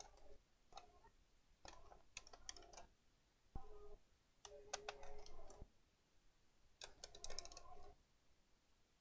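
Faint clicks and scrapes of screws being undone and small parts handled on a laptop's plastic base, in about five short bursts; two of them, in the middle, carry a brief steady hum.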